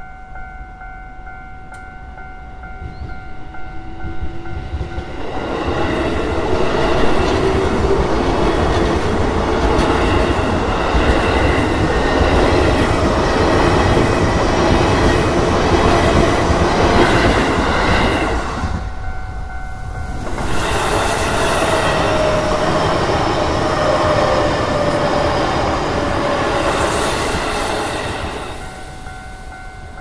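Japanese level-crossing warning bell ringing steadily while a JR East E233-series electric commuter train rumbles and clatters over the crossing and drowns it out. After a short lull a second train pass follows with high wheel squeal, and the crossing bell is heard again near the end.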